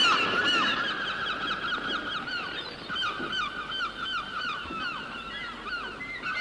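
Nesting colony of cormorants calling: many short calls with sliding pitch overlapping in a continuous chatter, slowly fading.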